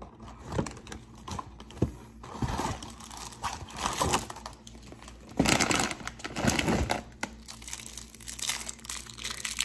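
Crinkling and rustling of snack packaging, with some tearing, as a Gansito snack cake is taken from its box and its plastic wrapper handled; the packaging noise is loudest a little past halfway.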